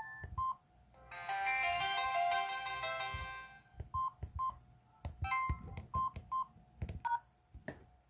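Samsung SGH-T219 flip phone sounds: a keypad beep, then a short multi-note power on/off melody previewing through the phone's small speaker for about two seconds, then a string of short keypad beeps with the clicks of the keys as the menu is stepped through.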